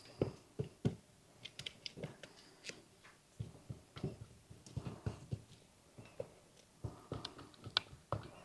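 A spatula stirring and knocking in a bowl, mixing a thick powdered-sugar and lemon glaze: irregular light knocks and clicks throughout.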